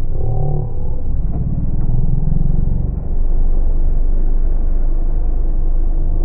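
Small boat's motor running steadily under way on the water.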